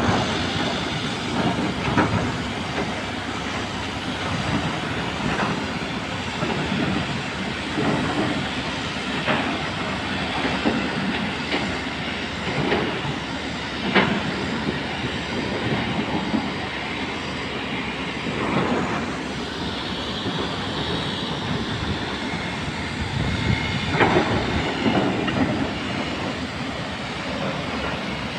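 Heavy machinery running with a steady rumble and hiss, punctuated every few seconds by sharp metallic knocks and clanks.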